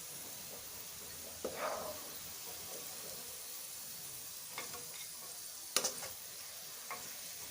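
Hot oil sizzling steadily in a frying pan as fried onions and curry leaves are scooped out with a spoon, with a few sharp clinks of the spoon against the pan, the loudest about six seconds in.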